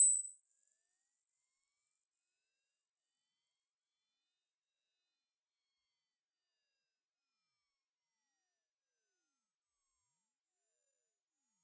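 Hearing-test tone: a single pure, very high beep that climbs in small steps, pulsing a little more than once a second and rising with each pulse. As it climbs past the upper limit of a listener's hearing it drops out for them, which is what the test reads as the ear's 'age'.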